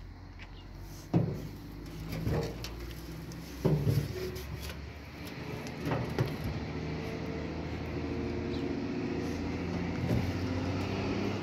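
A metal ladle knocking and scraping in a pot of tar heating over a wood fire: a few sharp clanks in the first six seconds. From about halfway there is a steady engine hum in the background.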